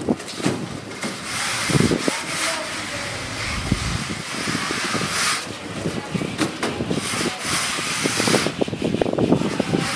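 Straight-edge screed rule being dragged across wet cement render to level it, scraping in repeated strokes of a second or two each.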